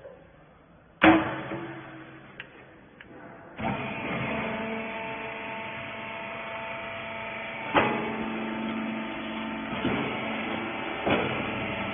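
A sudden loud bang, then about three and a half seconds in a rag baler's motor starts running with a steady hum of several held tones, with a few knocks over it.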